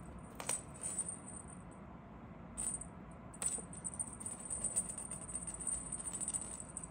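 A feather wand cat toy jiggled and batted by kittens, giving a high, fine jingling rattle that comes in short spurts at first and runs nearly without break over the second half, with a few light ticks.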